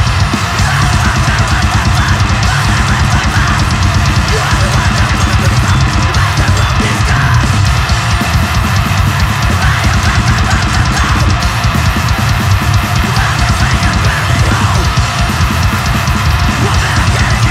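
Grindcore music from a full band, with fast, dense drumming on the kit and a heavy low end, steady and loud throughout.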